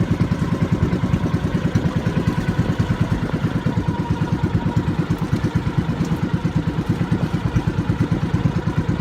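Boat engine running steadily with a rapid, even chugging beat.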